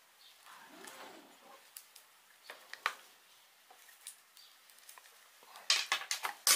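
A tablet's plug-in power adapter and cable handled in the hands: soft rustles and light plastic clicks, then a louder cluster of clicks and crinkling near the end as it is put down.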